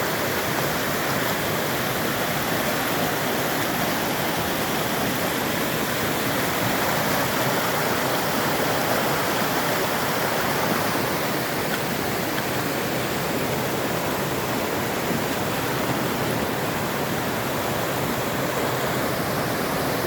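A fast-flowing stream rushing steadily, an even wash of running water with no breaks.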